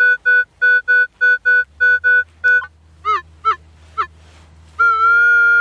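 Minelab CTX 3030 metal detector giving a target signal: about ten short, even beeps at roughly four a second, then three quick warbling chirps, then one long steady tone near the end.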